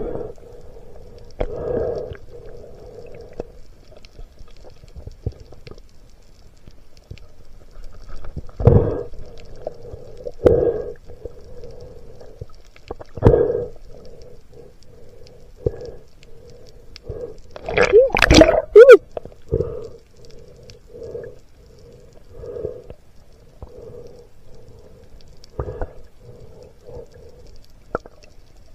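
Muffled underwater sound picked up by a camera in a waterproof housing during a freedive: a low rushing that swells every second or two, with a louder burst carrying short wavering pitch glides about eighteen seconds in.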